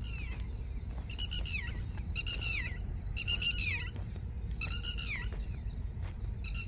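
An animal giving short, high, yelping calls, about one a second and five in all, each dropping in pitch at its end, over a steady low rumble of wind or handling noise.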